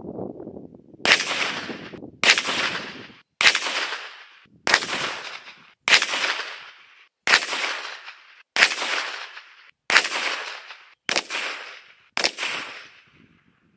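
Ruger PC Charger 9mm pistol firing ten single shots at a steady slow pace, about one every 1.2 seconds, each report trailing off in a short echo.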